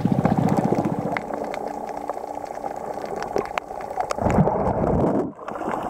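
Underwater sound around a snorkeler: a muffled rush of moving water and bubbles with scattered sharp clicks, and a louder surge of water noise about four and a half seconds in.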